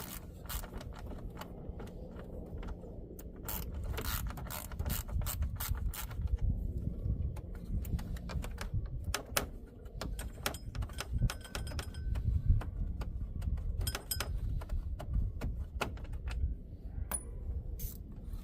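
Hand ratchet wrench clicking in quick runs as small bolts are worked loose, with scattered metal knocks, under a steady low rumble.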